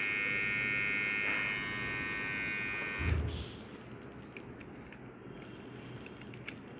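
Xiaomi Mi Beard Trimmer 1C running with a steady high-pitched buzz, switched off about three seconds in with a short thump. After that, a few faint plastic clicks as the comb attachment is handled and fitted onto the trimmer.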